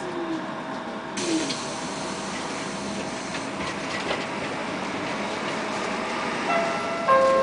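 Bogdan trolleybus in motion, heard from inside: steady road and cabin noise, with a whine from the electric drive falling in pitch as it slows, about a second in. Near the end a two-note electronic chime sounds, the second note lower.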